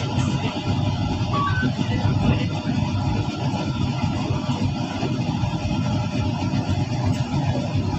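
Steady low rumble of a moving GO commuter train, heard from inside the coach.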